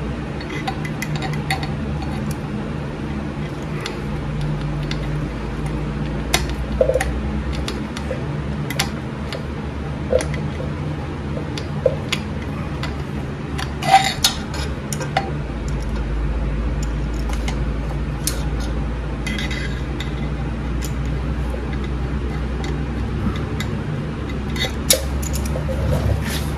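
Scattered small metallic clicks and clinks of a hand-held socket driver on a Harley Sportster's crankcase hardware as a bolt is threaded in by hand, with a few louder knocks now and then. A steady low hum runs underneath.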